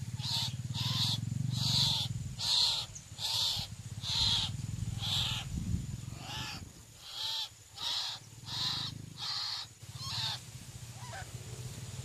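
White-breasted waterhen calls repeated about once a second, a dozen or so in a row, stopping shortly before the end. A low hum runs underneath for the first few seconds.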